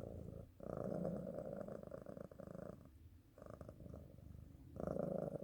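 A domestic cat purring: a rapid pulsing that comes in long stretches with short pauses between breaths. Louder stretches alternate with a softer one in the middle.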